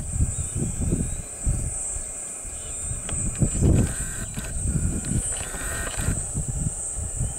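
Outdoor grassland ambience: a steady, high-pitched insect buzz, with irregular low rumbling from wind buffeting the microphone.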